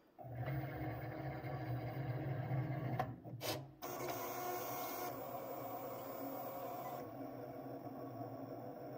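Cricut Maker 3 cutting machine starting a knife-blade cut on heavy chipboard: its motors start up and run steadily as the tool carriage travels across, with two clicks about three seconds in, then settle into a steady, printer-like running.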